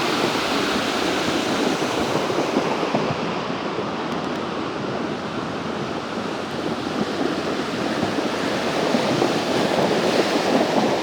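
Rain-swollen creek in flood, rushing water running steadily and loudly as it carries stones along, under heavy rain. It dips a little in the middle and swells again near the end.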